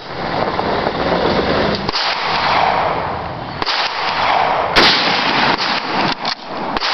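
A single sharp rifle shot about three-quarters of the way in, over a loud steady rushing noise, with fainter cracks shortly before and after it.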